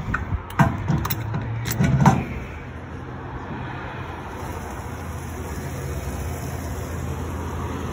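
A few clicks and knocks as the cap comes off an aluminium fuel cell and a fuel pump nozzle goes into the filler. Then a steady rushing sound: fuel running from the nozzle into the cell.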